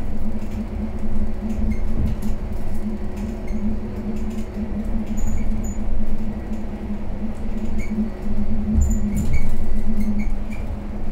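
Interior ride noise of a 2019 Mercedes-Benz eCitaro battery-electric city bus: a low rumble with a steady hum, and faint high squeaks and ticks from the fittings scattered through it.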